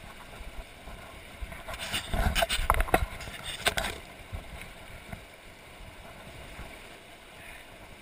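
Shallow mountain river rushing over stones, a steady wash of water. Between about two and four seconds in, a few sharp knocks and low rumbles of handling sound over it.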